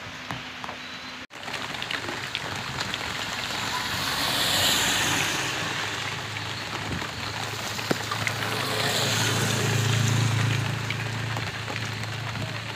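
Heavy rain falling on a street, with vehicles passing on the wet road: the tyre hiss and engine hum swell twice, about four and ten seconds in. The sound cuts out for an instant about a second in.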